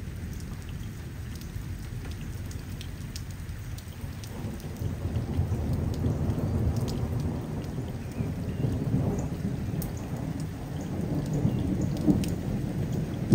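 Steady rain with thunder rolling. A low rumble swells about four seconds in, eases slightly, then builds again near the end, with scattered raindrop ticks over it.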